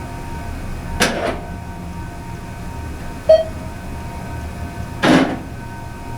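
ThyssenKrupp traction elevator car travelling with a steady low machine hum. A short electronic beep sounds about three seconds in. Two brief whooshing noises come about one second and five seconds in.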